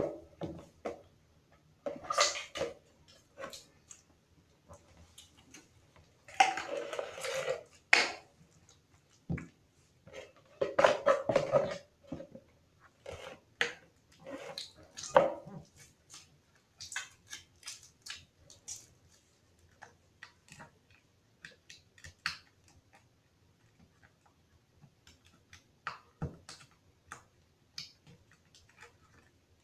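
Homemade slime being squeezed and worked by hand: irregular wet squelches and sticky pops, with two longer squishing stretches a few seconds in and again about ten seconds in.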